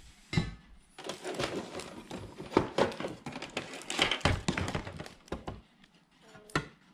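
Handling noise of bicycle drivetrain parts on a table: a dense run of clicks, taps and plastic rustling as the cassette is set aside and the crankset is brought over, then a single knock near the end as the crankset is set down on a kitchen scale.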